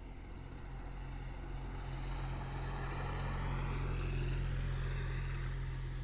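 A passing engine swells to its loudest about four seconds in and then fades, its whine shifting in pitch as it goes by over a steady low hum.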